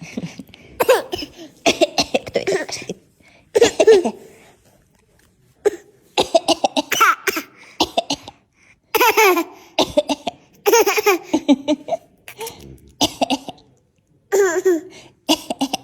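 Repeated coughing alternating with a young girl's laughter in several short bouts, the laughs coming as a reaction to the coughs.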